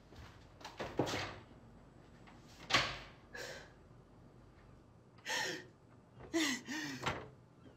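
A few dull thuds at a wooden door, then a woman crying in short, choked sobs over the last few seconds.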